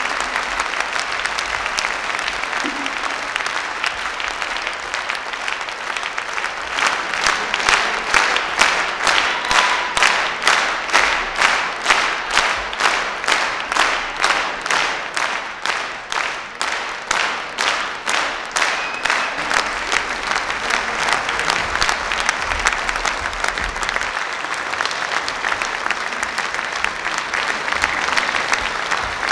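Concert audience applauding. Partway through, the clapping falls into a steady rhythmic unison of about two claps a second, then breaks up into ordinary scattered applause again.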